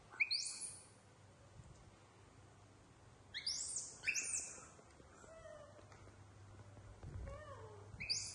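Baby macaque crying in short, very high-pitched squeals: one at the start, two in quick succession about three seconds in, and one more near the end, with fainter, lower whimpering glides in between.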